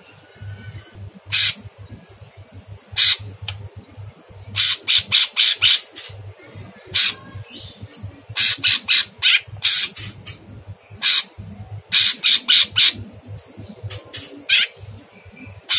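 A caged cucak cungkok leafbird giving harsh, rasping calls in short bursts, some single and some in quick runs of several: the rough 'tembakan' style that keepers value in this bird.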